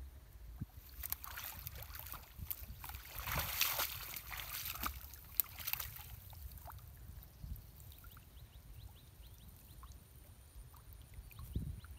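Pond water splashing and sloshing as a man wades and moves a hand net through shallow water. The splashing is busiest from about a second in to about six seconds in, then thins to a few small drips.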